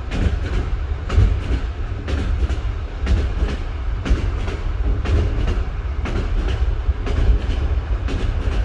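Train wheels knocking over rail joints in a steady clickety-clack: sharp knocks in quick pairs, about one pair a second, over a constant low rumble of the moving train.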